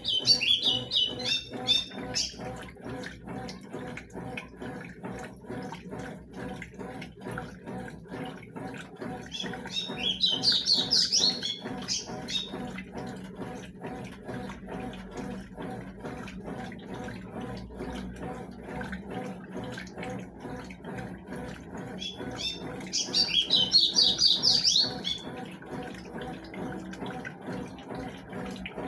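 Consul CWS 12 washing machine rinsing sheets: water sloshing over a steady hum. Three bursts of rapid high bird chirps, each about two seconds long, cut in near the start, about ten seconds in, and again about twenty-three seconds in.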